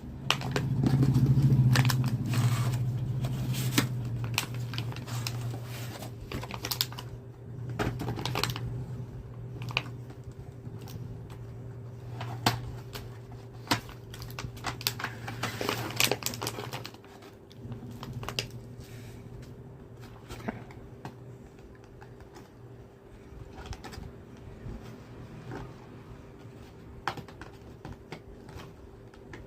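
Hands handling a Bluetooth neckband's packaging: irregular clicks, taps and light crinkles of box and plastic. Under them a steady low hum, loudest in the first few seconds, falls away about 17 seconds in.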